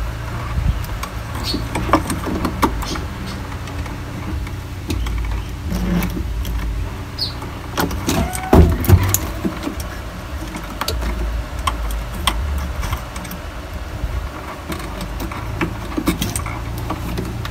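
Hands working on a washing machine's drain motor and its wire connection: scattered clicks, taps and knocks of plastic and metal parts, with a brief squeak about halfway through, over a low rumble.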